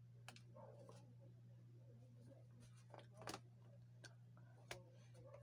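Faint clicks and small knocks of hands handling a Fujitsu laptop, first a finger on the power button, then hands gripping the screen lid, over a steady low hum. There are a handful of separate clicks; the loudest cluster comes a little past three seconds in.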